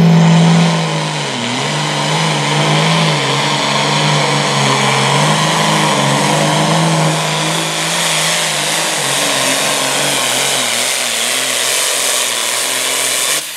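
Hot farm class John Deere pulling tractor's turbocharged diesel engine at full throttle, held at high revs as it launches, then dragging the weight-transfer sled down the track with its pitch wavering up and down under the load. The sound cuts off suddenly near the end.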